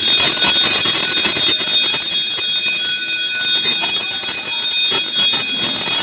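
Electric fire alarm bell of a fire detection and alarm system ringing loudly and without a break, set off by a smoke detector that has sensed smoke.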